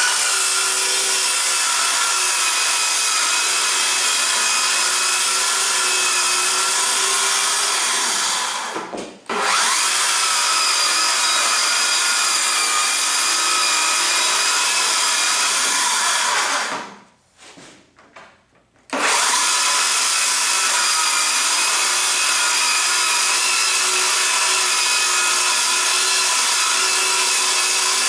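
Handheld circular saw ripping a long plywood panel, running at a steady whine under load. Twice it winds down and starts again: a brief pause about eight seconds in, and about two seconds of quiet just past the middle.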